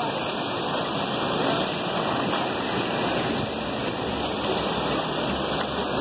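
Waterfall pouring into a rocky gorge: a steady, even rush of falling water.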